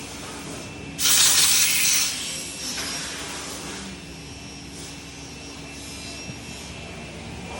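CNC machining centre working aluminium window profiles: a steady machine hum, with a loud hissing burst about a second in that lasts about a second and then fades away.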